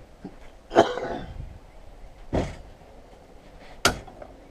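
A man coughing, three short separate coughs a second or so apart, from an illness he is down with.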